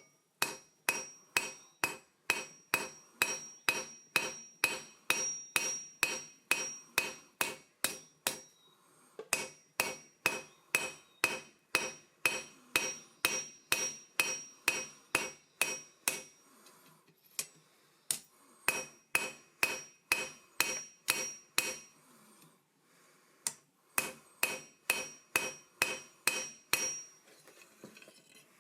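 Blacksmith's hammer forging iron on an anvil: sharp ringing blows at about three a second, in four runs with short pauses between, each blow leaving a high clear ring.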